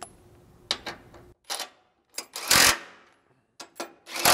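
Cordless impact wrench tightening the bolts of a bumper wing brace at the vehicle frame. It fires in short bursts, the longest and loudest about halfway through, with two brief ones near the end.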